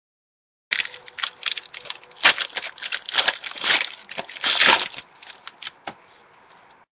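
Foil wrapper of a trading-card pack being torn open and crinkled by hand: a quick run of sharp crackles and rustles, loudest in the middle, thinning to a faint hiss near the end.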